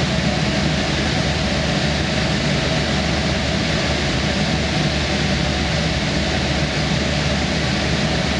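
Steady cockpit noise of an Allison 250 B17C turboprop and its propeller running at cruise power, with a steady low drone under an even rush of air.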